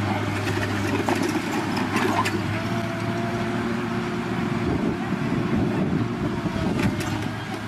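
An engine running steadily under a low, even hum, with a few short knocks and clicks over it.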